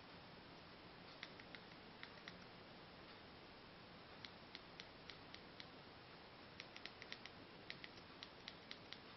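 Remote control buttons clicking faintly, pressed in four quick runs of about three or four clicks a second, over a faint steady hiss.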